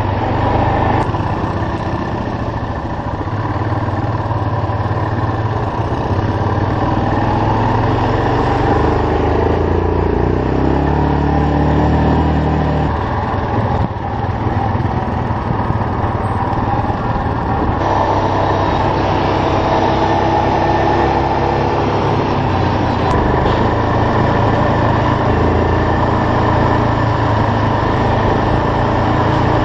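ATV (quad bike) engine running as it is ridden, its pitch shifting several times with changes of speed, over a steady rushing noise.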